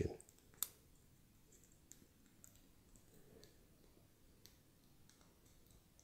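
Small, sharp plastic clicks from a Canon EOS M camera's rear panel and buttons being pressed into place: one clear click about half a second in, then a few faint ticks over near silence. The clicks are the sign of the backing plate's lips and the buttons clicking positively into their seats.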